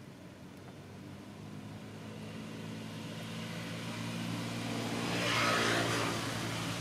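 A motor vehicle approaching and passing, its engine a steady low hum that grows louder, with a swell of tyre-like hiss loudest about five and a half seconds in before it fades.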